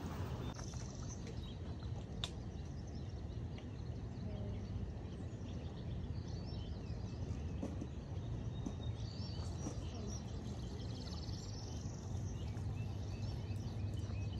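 Steady low rumble of wind on the microphone, with birds chirping faintly now and then and a single faint click about two seconds in.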